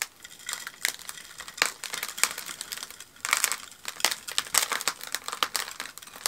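Crackling and crunching of a spider plant's root-bound root ball being handled and pulled loose from its pot, roots and gritty soil mix rustling and snapping in many quick bursts.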